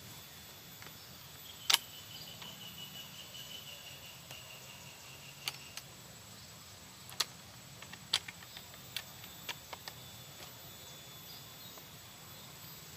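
Quiet forest ambience with a steady high insect drone, broken by one sharp click about two seconds in and a scatter of lighter clicks a few seconds later.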